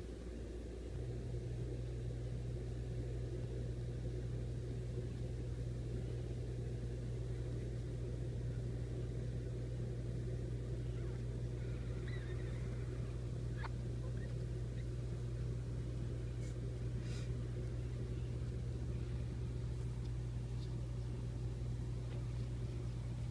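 A steady, low electrical hum that starts about a second in, with a few faint, short clicks near the middle.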